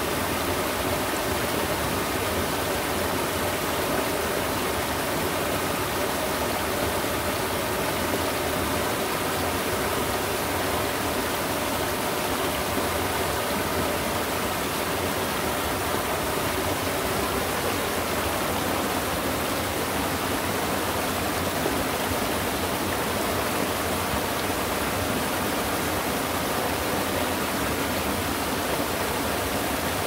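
Small waterfall splashing steadily into a shallow pool, an even rushing of falling water.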